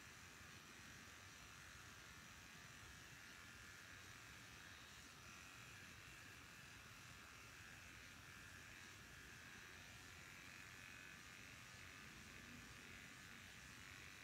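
Electric hair clipper running with a faint, steady buzz as it trims hair along the cheek and jaw.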